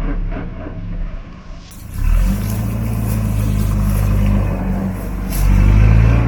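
Off-road 4x4's engine running steadily under load, growing louder near the end.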